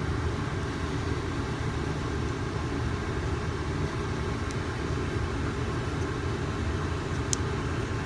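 Air conditioner running with a steady low drone, with a couple of faint clicks from small metal parts being handled.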